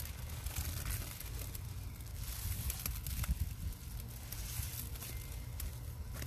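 Thick wet powder paste crackling and squelching as a paste-soaked sponge is squeezed and worked by hand, with scattered sharp crackles over a steady low outdoor rumble.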